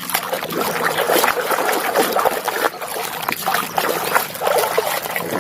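Water trickling and splashing irregularly as a muddy toy vehicle is rinsed clean.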